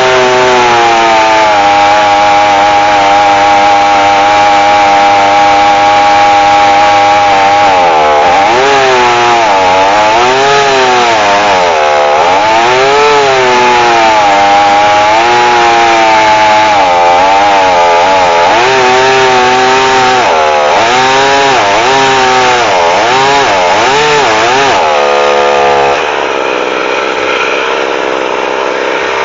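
Small chainsaw in a chainsaw mill ripping a log lengthwise into a board at full throttle. Its pitch dips and recovers over and over as it bogs in the cut and is worked back and forth, because the saw is short of power and has a standard crosscut chain, not a rip chain. About three seconds before the end the sound turns quieter and the engine note fades.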